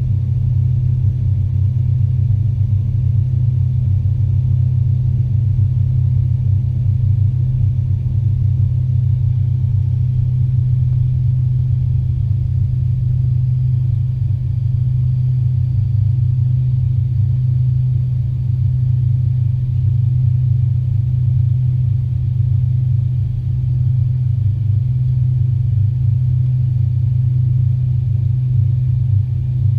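Steady low cabin drone inside an Avro RJ85 airliner, from its four Honeywell LF507 turbofan engines and the airflow over the fuselage, with a strong even hum and no change in pitch.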